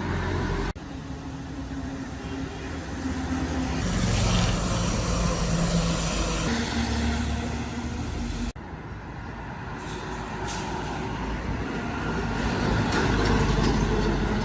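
Heavy cargo truck engine running with road noise, in clips joined by two abrupt cuts, one just under a second in and one a little past halfway.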